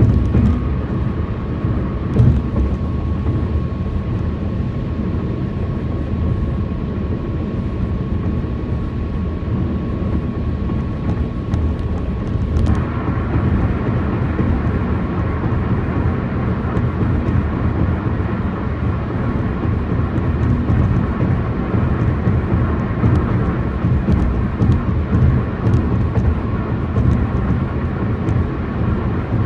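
Tyre noise from a car driving on rough, worn concrete pavement, heard inside the cabin: a loud, steady roar, mostly deep, with a few short knocks from bumps. A faint high steady whine drops out about twelve seconds in, after which the roar sounds a little brighter.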